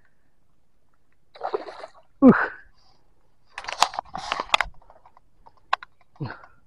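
Water splashing in short bouts, about a second and a half in and again around four seconds, as a big hooked hampala thrashes at the surface while being landed. A man's short exclamation just after two seconds is the loudest sound, with another near the end.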